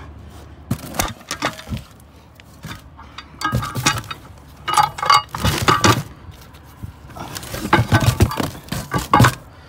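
Heavy steel truck brake shoes being handled and packed into a cardboard box: several bursts of clanking and knocking as the metal shoes hit each other and the box.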